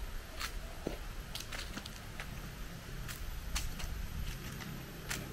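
Footsteps crunching dry leaves and grit on a concrete courtyard: about a dozen light, irregular ticks and crackles, over a low steady rumble.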